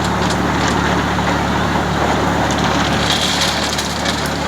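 Tractor engine running steadily to power a self-loading concrete mixer, with irregular clatter and rattling over it, strongest about three seconds in.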